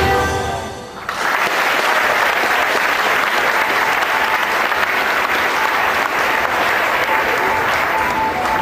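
A large theatre audience applauding steadily as the dance music ends; the music fades out about a second in and the clapping takes over.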